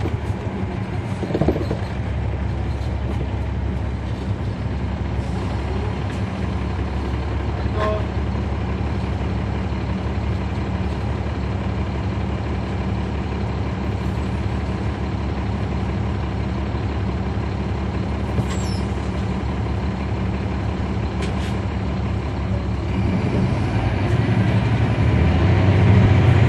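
Caterpillar C13 diesel engine of a 2009 NABI 416.15 (40-SFW) transit bus, heard inside the cabin from the rear seat, running with a steady deep drone. It gets louder and fuller about three-quarters of the way through.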